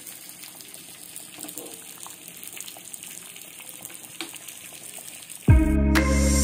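Pearl spot (karimeen) fish frying in oil on a flat pan, a steady sizzle with small crackles. Loud background music cuts in near the end.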